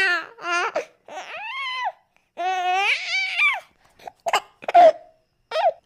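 A string of high-pitched vocal cries and squeals with a wavering, sliding pitch, broken from about four seconds in by a few short, sharp yelps.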